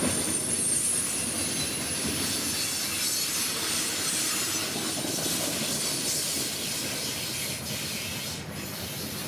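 Loaded coal hopper cars rolling past on the rails, wheels rumbling with a faint high-pitched squeal in the first few seconds. The sound slowly fades as the end of the train passes and moves away.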